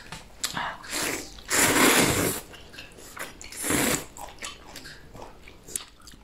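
Rice noodles being slurped from a bowl: two loud slurps, a longer one about a second and a half in and a shorter one near the four-second mark, with smaller mouth and chewing noises between.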